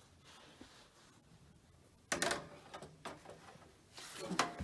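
Motherboard being set down into a metal computer case: a sudden clatter about two seconds in, scraping and small knocks as it settles, and a few more knocks near the end.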